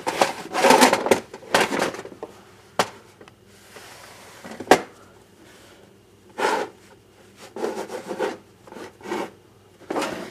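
A cloth wiping and rubbing over the ribbed plastic top case of a Macintosh LC in irregular strokes, working Goo Gone-softened grime off the surface, with a couple of sharp knocks between strokes.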